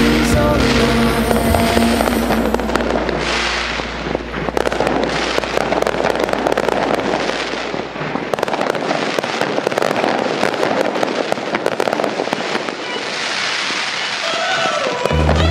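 Fireworks going off in a dense, rapid barrage of pops and crackles, with music in the background for the first couple of seconds.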